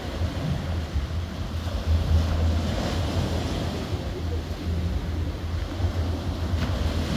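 Sea waves washing onto the shore, with wind buffeting the microphone in a continuous low rumble. The wash swells briefly about two seconds in.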